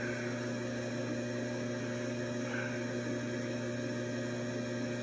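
Steady machine hum with several fixed low tones and a constant hiss, unchanging throughout.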